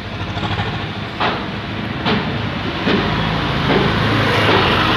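An engine running with a steady low hum, with a sharp clank roughly every second, growing louder in the second half.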